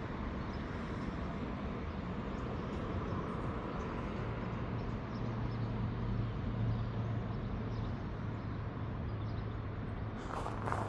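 Steady outdoor background noise with a low, steady engine hum from distant vehicle traffic coming in about four seconds in; a few short clicks near the end.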